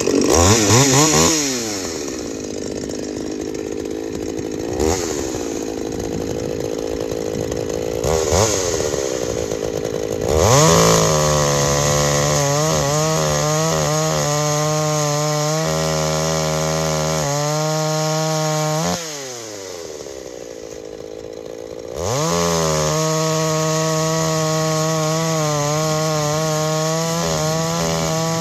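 Freshly rebuilt Husqvarna 162 SE two-stroke chainsaw making test cuts. It idles with a couple of short throttle blips, then runs at full throttle cutting through a log for about eight seconds. It drops back to idle for a few seconds, then goes to full throttle again for a second cut.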